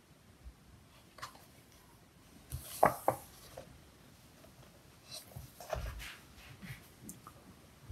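A page of a large hardcover book is turned by hand: a paper swish and a soft slap about three seconds in as the leaf flips over, then lighter rustling as a hand smooths the new page.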